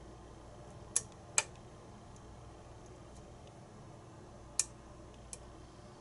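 Pin-tumbler challenge lock being picked: sharp clicks as the pins snap inside the plug under the hook pick, two close together about a second in and another near the end, the lock's "snap, crackle, pop".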